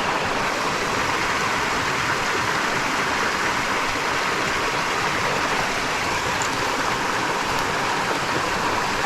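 Steady rushing of water pouring over a small river spillway, an even, unbroken wash of sound.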